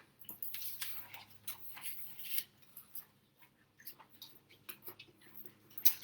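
Short, quick strokes of a drawing tool scratching on paper while sketching fur, with scattered light ticks, thickest in the first couple of seconds and again near the end.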